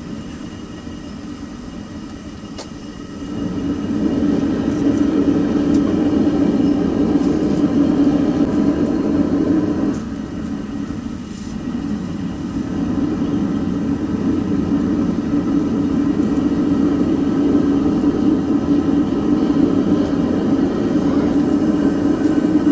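Gas burner of a small metal-melting furnace running steadily, heating a crucible of aluminum fins. It gets louder about three seconds in and dips briefly around the middle.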